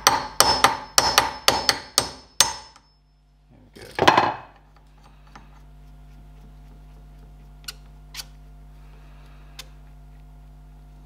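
Hammer knocking a steel wheel stud out of a Ferguson TED20 front wheel hub: a quick run of about eight metallic blows over the first two and a half seconds, then a louder, longer clatter about four seconds in. After that only a steady low hum and a few faint ticks.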